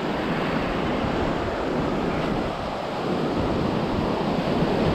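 Ocean surf washing over the shallows around the legs, a steady rush of water with wind rumbling on the microphone.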